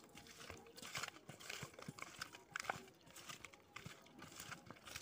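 Hand mixing small raw tengra fish with spices in a steel bowl: faint, irregular wet squishing and clicking as the fish are squeezed and turned.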